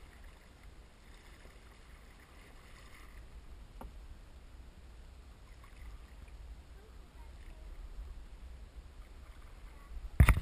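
Canoe paddles dipping and stroking faintly through calm river water, over a steady low rumble. A single click about four seconds in and a few loud, sharp knocks near the end.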